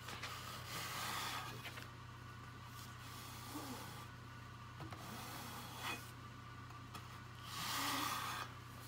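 A metal bench scraper rubbed across the back of a small stretched canvas, pressing it onto paint-covered bubble wrap: faint swishing strokes, the longest about a second in and near the end.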